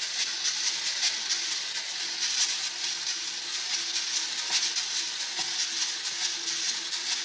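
Coffee beans tumbling and rattling inside a hand-cranked metal drum roaster as it is turned: a steady hissing rattle.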